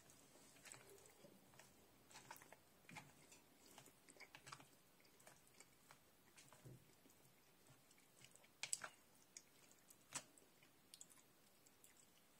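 Very faint chewing of a mouthful of chicken casserole: soft mouth sounds with scattered small clicks, two of them a little louder late on.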